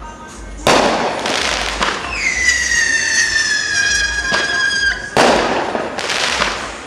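Fireworks going off: a loud bang under a second in, then a long whistling firework whose pitch slowly falls over about three seconds, then another loud bang about five seconds in.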